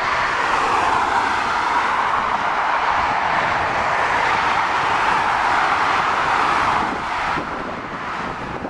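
Jet engines of a Boeing 767-300ER running at taxi power as the airliner turns. The steady jet noise drops somewhat about seven seconds in.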